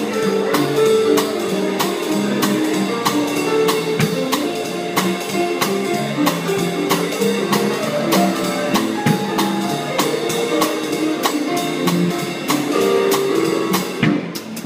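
Small jazz band of trumpet, piano, double bass and drum kit playing a swing tune, the drums keeping a steady cymbal beat under the melody notes. The high cymbal sound drops out near the end.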